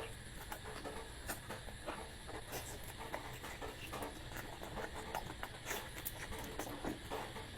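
Person eating and chewing close to the microphone: a steady run of small clicks and smacks from the mouth.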